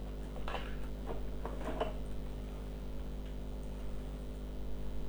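Phone circuit board being fitted into a PCB holder stand: a few light clicks and taps in the first two seconds, over a steady electrical hum.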